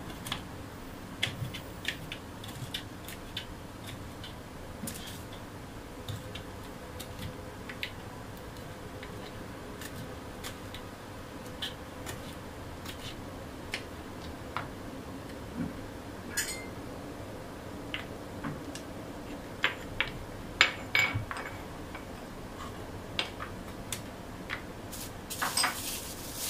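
Kitchen knife slicing small red bird's eye chillies on a plastic cutting board: irregular light clicks as the blade knocks the board, a few at a time with pauses between. Near the end a plastic bag crinkles as it is handled.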